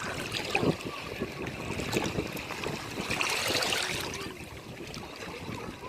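Sea water washing and lapping at the shore with small splashes; one wash swells about three seconds in, then ebbs away.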